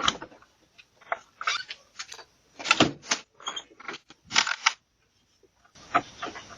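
A front door being rattled and knocked on, heard through a doorbell camera's microphone: a string of sharp clacks and knocks over about five seconds, then a pause.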